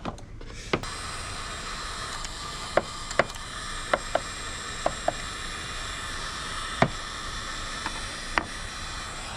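A steady hiss that switches on about a second in, with about ten light, sharp clicks and taps scattered over it, like small hard pieces being handled.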